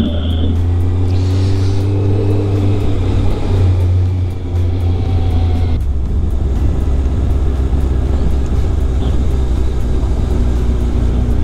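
Steady low engine and road drone of a moving car heard from inside the cabin, shifting slightly about six seconds in.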